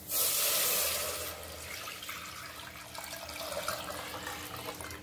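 Thin gram-flour and buttermilk batter poured into a steel pan of hot ghee and frying onions: a loud sizzle for about the first second as it hits the hot fat, then a steady pour and splash of liquid as the pan fills.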